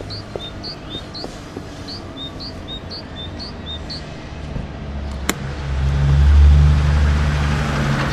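Sound-effect track of a van's engine rumbling low, with short bird chirps repeating about twice a second. About five seconds in there is a sharp click, after which the engine sound grows louder and deeper.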